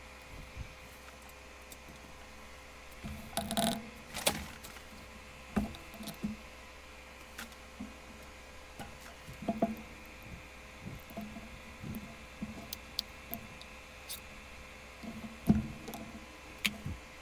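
A mouse's box and packaging being handled and opened: scattered light taps, clicks and rustles, with a louder rustling burst a few seconds in and a sharp knock near the end.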